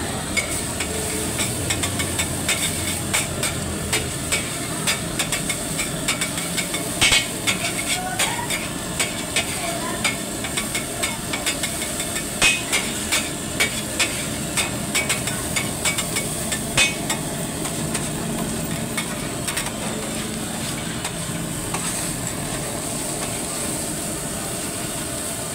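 Metal spatula clacking and scraping on a flat steel griddle as egg is chopped and mixed taka tak style, over a steady sizzle of frying. The clacks come in irregular runs through most of the first two-thirds; after that it is mostly the sizzle.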